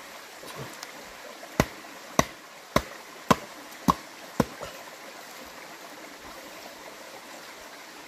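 Six sharp knocks about half a second apart as a green bamboo tube stuffed with pork is knocked down against the ground to settle the filling, over the steady rush of a small stream.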